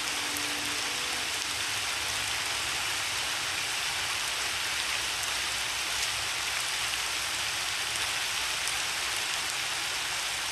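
Steady rain falling, from a rain-and-piano background track, with the last piano notes dying away in the first second or two.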